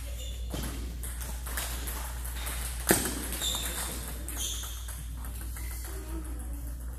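Table tennis rally: the celluloid ball clicking off paddles and bouncing on the table in an irregular run of sharp clicks, the loudest about three seconds in, over a low steady hum.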